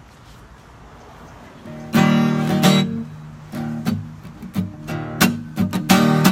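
Acoustic guitar strummed in chords, starting about two seconds in after a short quiet stretch.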